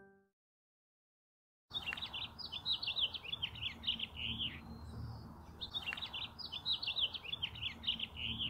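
Small birds chirping and twittering in quick, high, busy phrases over a faint low outdoor rumble, starting abruptly about two seconds in after a short silence. The same stretch of song plays twice. At the very start the last of a piano chord dies away.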